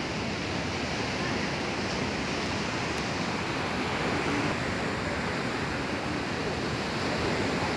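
Steady rush of sea surf breaking on a pebbly beach, mixed with wind on the microphone.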